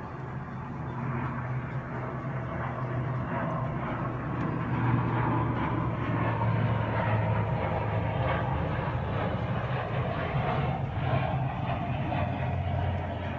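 A four-month-old British Shorthair kitten purring steadily, close to the microphone.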